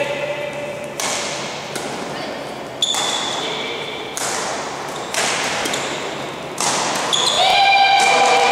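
Badminton rackets striking a shuttlecock in a fast doubles rally, about seven hits roughly a second apart, each echoing in a large sports hall. Brief high squeaks come between the hits, and a longer squeal rises near the end.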